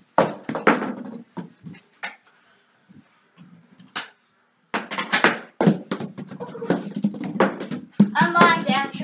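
A string of sharp knocks and thuds from a small plastic hockey ball and goalie gear hitting the wooden floor and walls in a small room. The knocks stop for a couple of seconds in the middle, then come thick again. A voice-like sound joins near the end.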